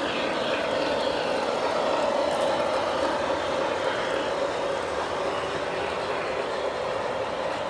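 O-gauge model diesel locomotive and its train running past on the track, a steady drone and rolling rumble.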